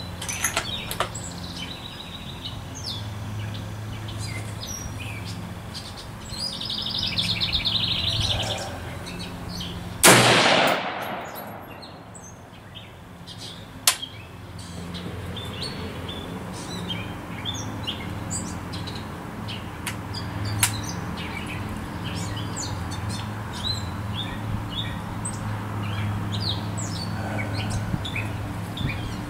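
A DPMS Oracle AR-15 fires a single .223 round (Perfecta 55-grain full metal jacket) about ten seconds in: one loud shot with a long fading echo. Birds chirp throughout, and there is a shorter sharp tap a few seconds after the shot.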